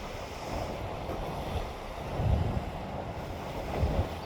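Ocean surf washing on the shore, with wind buffeting the microphone in low gusts, strongest about two seconds in and again near the end.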